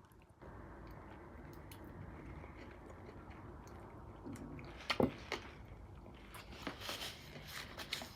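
Person chewing and biting into saucy fried chicken, with wet mouth sounds and a few sharp clicks, loudest about five seconds in.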